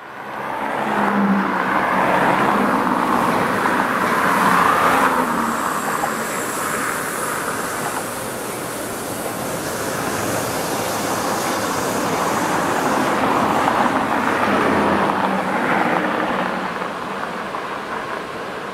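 Road traffic close by: cars passing, with the noise swelling about a second in and again around fourteen seconds, over a steady road hiss.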